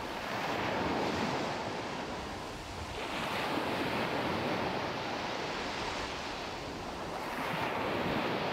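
Surf washing on a shore, a steady rush that swells and eases three times.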